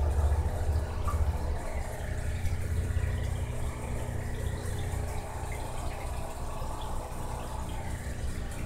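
Aquarium filter running: a steady trickle of water over a low, even hum.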